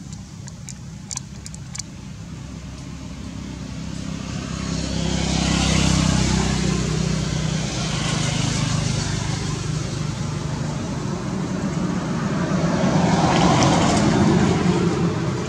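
Motor vehicle engine and road noise, swelling as vehicles pass, loudest about six seconds in and again near the end.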